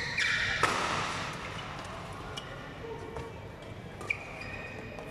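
A badminton rally in a large hall: rackets cracking against the shuttlecock and court shoes squeaking on the floor. A loud hit about half a second in rings on in the hall, and a sharp squeak comes about four seconds in.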